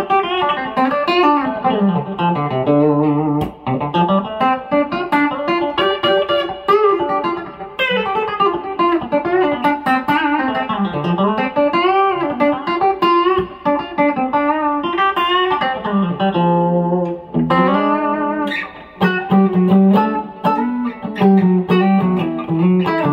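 Fender Telecaster electric guitar played fingerstyle without a pick, a run of chicken-pickin' country licks: quick plucked notes with frequent string bends swooping up and down in pitch, and repeated low notes near the end.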